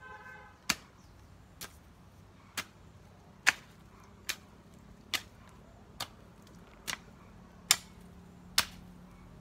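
Ten sharp strikes, evenly spaced a little under a second apart, as a hand tool strikes something again and again.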